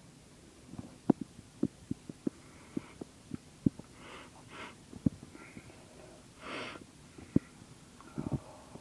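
A person holding back sneezes after taking chhinkni sneezing powder: a run of short sharp throat and nose clicks, with a few breathy puffs of breath in the middle, the longest about six and a half seconds in.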